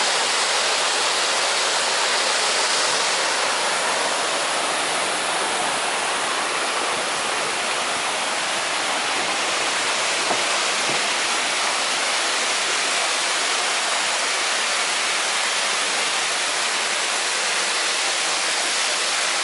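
Waterfall pouring down a rock face: a loud, steady rush of falling, splashing water.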